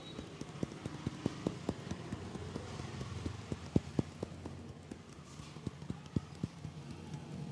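Hands tapping and slapping on a person during a massage: a run of quick, dull, irregular thumps, several a second, with a steady low hum underneath.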